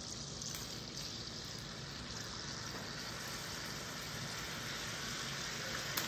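Melted butter and minced garlic sizzling steadily in a stainless steel pan over a gas burner that is set too high, hot enough that the butter is starting to burn. A light tap comes near the end.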